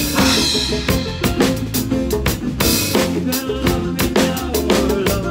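Drum kit played close up in a steady rock beat, with snare, bass drum and rimshot hits. A cymbal crash rings just after the start, and the rest of the band's pitched instruments play along underneath.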